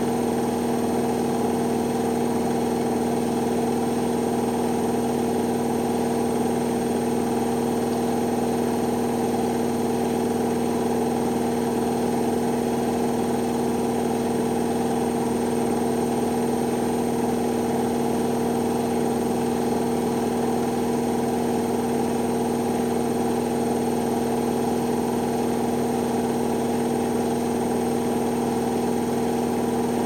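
Hoover Optima OPH714D washing machine on its final spin, the drum turning at a steady high speed: an even motor whine with a two-note hum that does not change.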